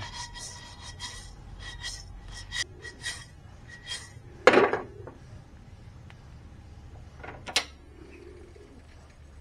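Metal spatula stirring and scraping raw rice grains as they dry-toast in a non-stick wok, with scattered light scrapes and clicks and two louder knocks, about four and a half and seven and a half seconds in. The rice is being toasted until it turns yellow.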